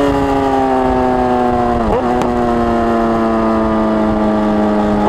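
Suzuki GSX-S1000's inline-four engine running under way, its note sinking slowly in pitch with a brief dip in revs about two seconds in.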